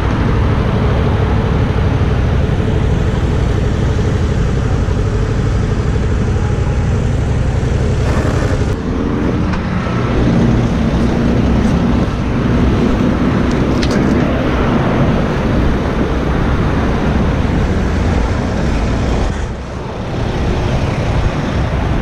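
Motorcycle engine running with road noise. The engine note drops about nine seconds in as the bike slows, and the sound dips briefly near the end.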